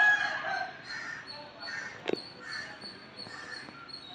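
Domestic fowl calling: a loud call right at the start, then several shorter calls, with a single sharp knock about two seconds in.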